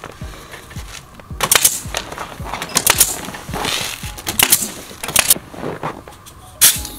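Pneumatic nail gun firing about ten times, mostly in quick pairs, driving fasteners through plastic sheeting into wood strips. Background music plays underneath.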